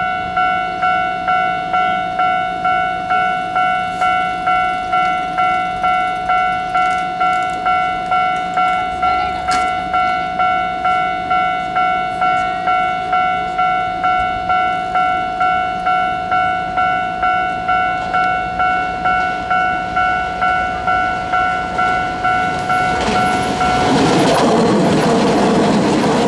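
Japanese level-crossing warning bell ringing repeatedly, about two strokes a second, until it stops near the end. A Keisei AE-series Skyliner train then passes close by, its wheels running on the rails the loudest sound.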